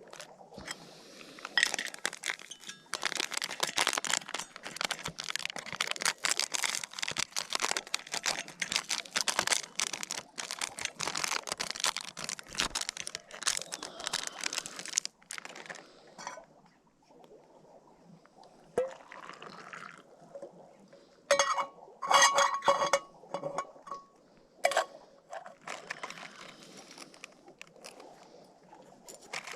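Plastic or foil packaging crinkling and rustling for about fifteen seconds, then a few metallic clinks that ring briefly, typical of camp cookware or a mug while a hot drink is made.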